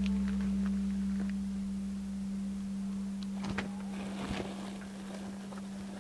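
Background music ending on one held low tone that slowly fades, with a couple of faint knocks about halfway through.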